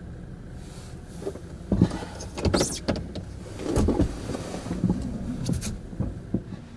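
Rustling, knocks and clicks inside a car as the occupants shift in their seats and reach around, over a steady low hum. The sounds come at irregular intervals, the loudest about two seconds in.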